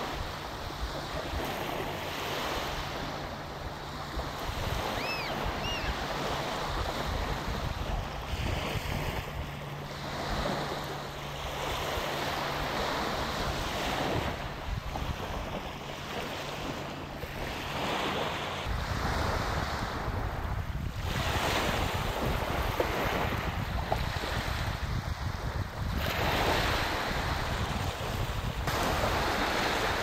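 Sea waves washing against a rocky shore in surges every few seconds, with wind on the microphone. There are two faint high chirps about five seconds in, and a faint steady low hum that stops a little past halfway.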